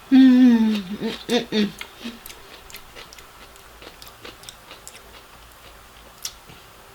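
A woman's drawn-out "mmm" of enjoyment, falling in pitch, then a few short hums, followed by faint chewing: small wet clicks and crunches of cucumber eaten close to the microphone.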